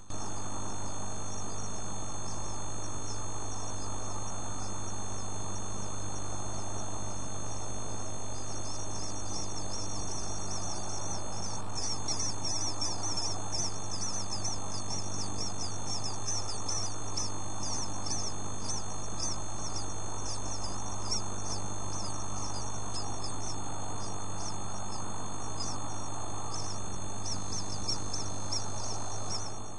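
Tiny bird chicks peeping: rapid, high-pitched chirps that start about twelve seconds in and run for some fifteen seconds. A steady low hum sits underneath.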